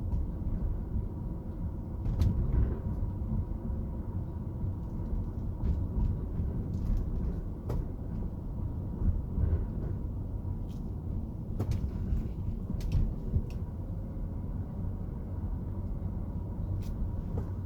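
Car driving, heard from inside the cabin: a steady low road and engine rumble, with scattered small clicks and knocks.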